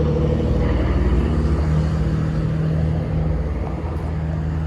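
2022 Comfortstar 5-ton central air conditioner condensing unit running: a steady hum from its scroll compressor, which the owner thinks is an LG scroll, under the rush of the condenser fan.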